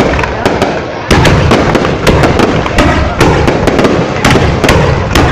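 Fireworks going off: dense, rapid bangs and crackling, many overlapping, with a brief lull about a second in before a loud burst starts again.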